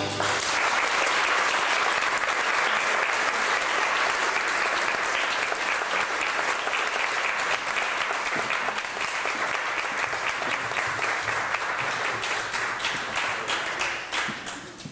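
Audience applauding at the end of a dance, many hands clapping together, thinning out and dying away near the end.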